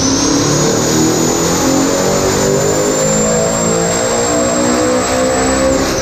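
Twin-turbocharged Ford Coyote V8 running hard under boost, loud, with a high turbo whine that climbs during the first second, holds steady, and drops away near the end.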